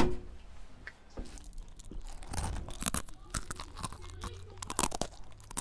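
Irregular crunching and clicking noises, loudest in clusters about two and a half and five seconds in, over a low steady hum.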